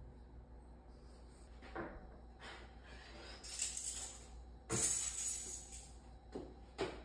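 Steel bandsaw blade rattling and jingling as it is handled and flexed to fold it into coils, with several sharp metallic clatters, the loudest about five seconds in.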